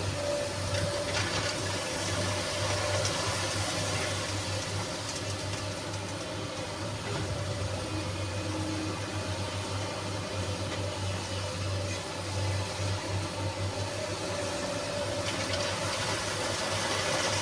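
SANY SY215C excavator running steadily: a constant low engine hum with a steady higher tone and a noisy rush over it.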